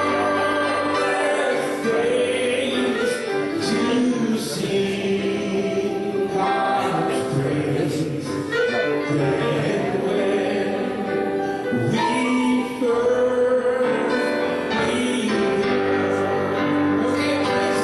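Gospel music in church: several voices singing together, held notes moving through a melody without a break.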